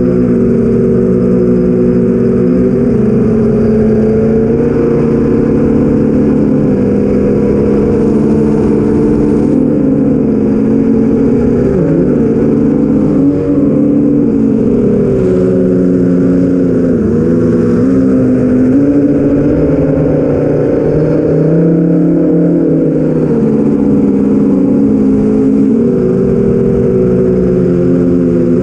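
Eight-inch FPV quadcopter in flight: its four BrotherHobby Avenger 2812 brushless motors spinning 8045 propellers make a loud, steady drone, heard from the onboard camera. The pitch dips and climbs back a few times as the throttle changes.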